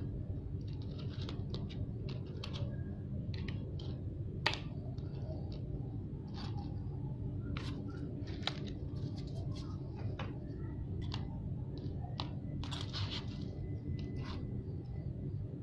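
Irregular small clicks and taps of tools and parts being handled on a watch at the bench, over a steady low hum.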